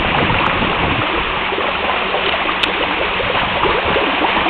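Running water spraying and splashing in a steady rush.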